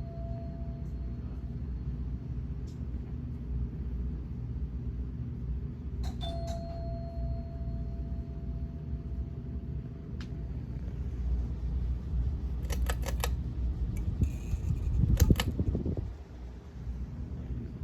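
A 42-inch Gulf Coast Mini Breeze ceiling fan running with a steady low hum and air rush. A single ringing chime sounds twice, about six seconds apart. Near the end comes a quick cluster of clicks, then a louder thump.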